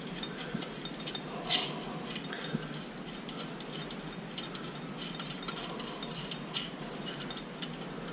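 Light, irregular metallic clicks and rattles of steel quick-hitch hardware (bolts and set screws) being handled and turned by hand, with one sharper click about a second and a half in.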